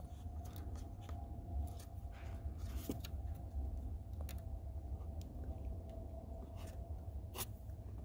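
Faint, scattered plastic clicks and rubbing from fingers working inside a car's interior fuse box and its plastic cover, over a low rumble of handling noise and a faint steady hum.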